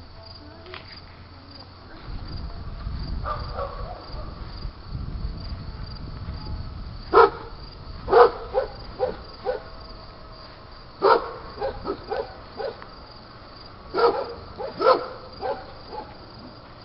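A dog barking in several quick runs of short, sharp barks, over a steady background of insects chirping.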